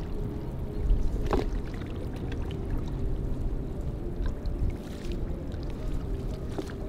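Water lapping and splashing around a small fishing boat as a net is lifted over a brush park of cut mangrove branches, with a few short splashes, the sharpest about a second and a half in. A low rumble runs underneath, and a faint steady hum comes and goes.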